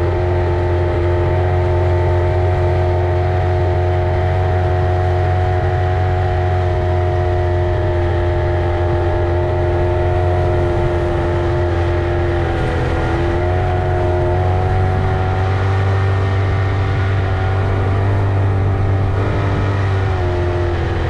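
Tohatsu 25 hp outboard motor running steadily with the boat under way, its pitch dipping briefly about two-thirds of the way in and again near the end before coming back up.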